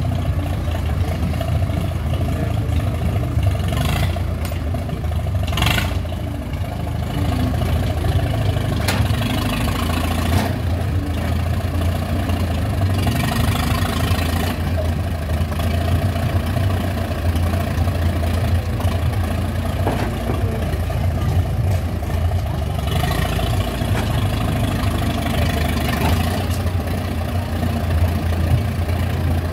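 Farmall F-20 tractor's four-cylinder engine running steadily at low speed as the tractor is driven slowly up onto a flatbed trailer. A few brief knocks sound in the first ten seconds.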